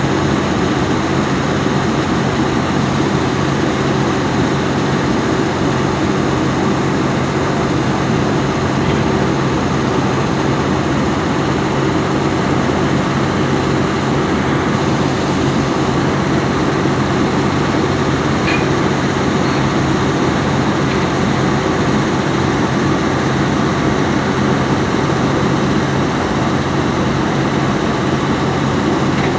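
Volvo EC210B excavator's diesel engine running steadily at a constant pitch, with a steady mechanical drone.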